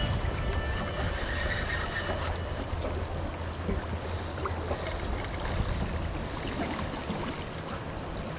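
Boat motor running at a steady low hum over the rushing noise of the river current. A faint thin high whine sounds from about four to seven seconds in.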